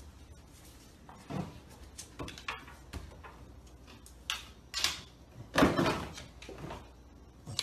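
A stainless steel refrigerator door being pulled open by a corgi, then scattered knocks and rattles as the dog reaches into the fridge. The loudest clatter comes a little past halfway.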